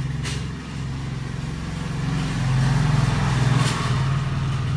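A low, steady motor hum that swells a little past halfway, with a faint hiss rising and falling over it.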